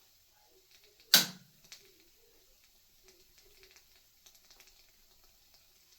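A single sharp knock about a second in, followed by faint small clicks and handling noises.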